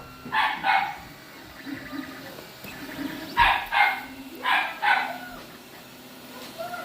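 A dog barking: two short barks, then four more in quick pairs from about three seconds in.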